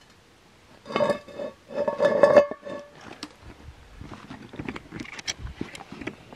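Metal cookware clanking and ringing twice, then a run of lighter clicks and knocks as the gear is handled over the fire.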